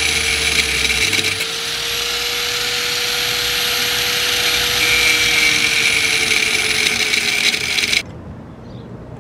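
Electric angle grinder running steadily and grinding metal, cutting off the rusted, stripped screws that hold a car's rear brake rotor. There is a steady whine under the grinding noise, and the grinder cuts off suddenly near the end.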